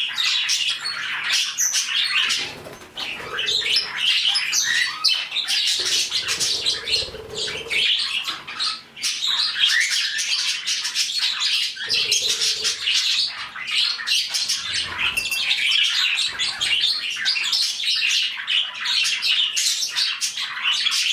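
A flock of budgies chattering nonstop: many overlapping chirps, warbles and squawks, with several short bursts of wing flapping.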